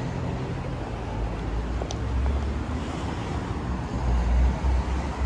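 Busy city street ambience: a steady hum of road traffic, with low wind rumble on the microphone swelling twice, about two and four-and-a-half seconds in.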